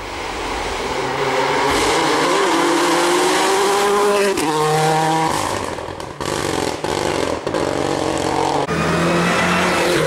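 Rally car engine at full throttle on a tarmac stage, revving hard and rising in pitch, with a sudden jump in pitch a little before halfway and several sharp breaks in the sound at gear changes.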